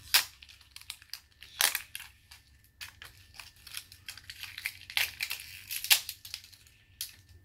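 Wrapper crinkling and tearing as layers are peeled off an L.O.L. Surprise Confetti Pop toy ball: irregular sharp crackles, with louder rips just after the start, about a second and a half in, and around five to six seconds in.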